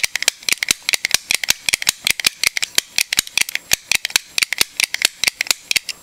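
Southord manual pick gun snapping again and again as its trigger is squeezed, each snap firing the pick needle up against the pins of a pin tumbler cylinder lock. A rapid, slightly irregular clicking of about seven or eight snaps a second.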